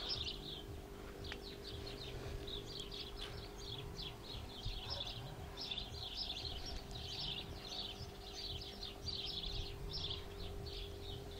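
Small birds chirping and twittering continuously, fairly faint, with a low steady hum underneath.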